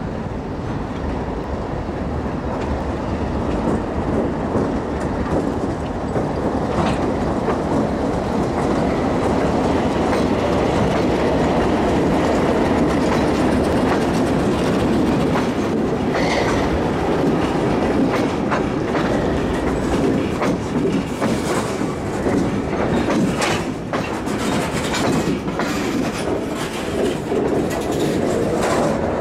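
Freight train passing close by: the diesel locomotives' engines build up and run loudest as they go past. Then the freight cars roll by, their wheels clicking sharply and irregularly over the rail joints.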